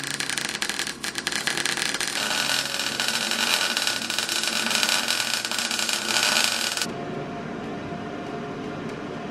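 Electric arc welding on a steel axle housing: the arc gives a dense, steady crackle and sizzle, which cuts off suddenly about seven seconds in, leaving a quieter steady hiss.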